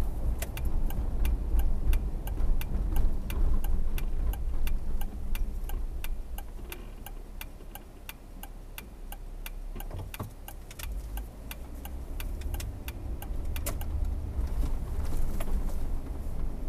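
Car turn-signal indicator ticking steadily, about three clicks a second, over engine and road rumble heard from inside the car. The rumble dies down through the middle as the car slows, then builds again as it pulls away.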